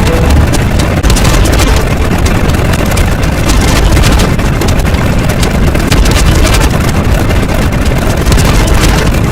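Loud, continuous rumbling noise, heavy in the bass and without a clear pitch.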